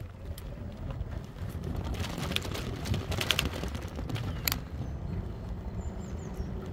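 Steady wind and tyre rumble from riding an e-bike, with a run of sharp clicks and knocks in the middle and a few short bird chirps.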